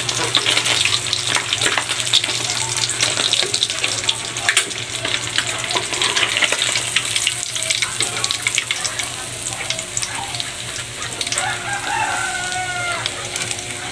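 Fish frying in hot oil: a dense, steady crackle and sizzle.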